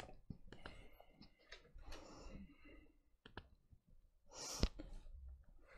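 Quiet room tone with a few faint clicks, and a breath into the microphone about four and a half seconds in.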